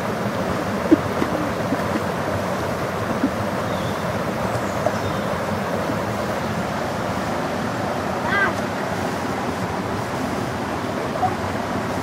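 Forest stream rushing down a rocky cascade: a steady, loud rush of falling, churning water.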